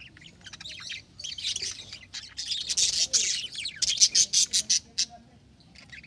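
A flock of budgerigars chattering in a rapid run of short, high-pitched chirps that overlap one another. The calling is densest in the middle and thins out in the last second.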